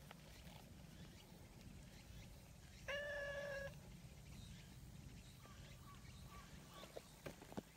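A cat meows once, about three seconds in: one short call of under a second, held at a steady pitch.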